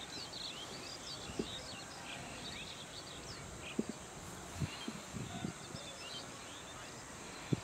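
Small birds chirping in quick, short high calls over a steady outdoor hiss, the calls thickest in the first few seconds and thinning out after. A few soft low thumps come through now and then.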